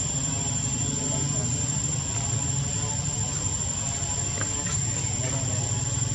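Steady low rumble with a constant thin high-pitched tone above it, unchanging throughout.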